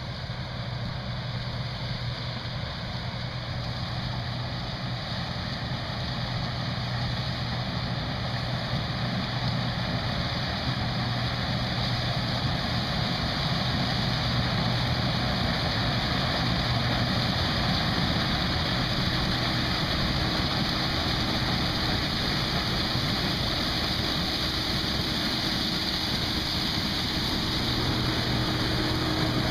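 Case IH 2588 combine running steadily while harvesting corn: a constant low hum under an even whirring noise, slowly growing louder over the first half.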